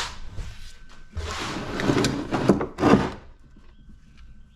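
Scraping and sliding of a container of scrap brass pieces being moved, ending in a couple of knocks, then quieter handling.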